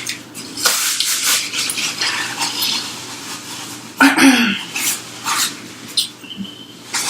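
Close-miked crunching and chewing of crispy fried chicken, in irregular bursts, with light clatter of food containers and utensils.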